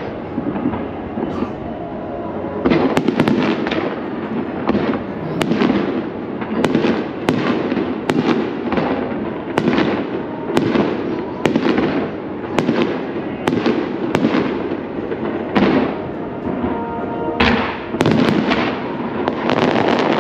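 Fireworks display: aerial shells bursting one after another, about one or two bangs a second, over a steady background noise.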